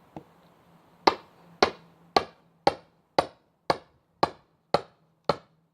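Sledgehammer striking a steel Roughneck wood grenade splitting wedge set in a log: a light tap, then nine sharp metallic strikes at a steady pace of about two a second, driving the wedge in to split the wood.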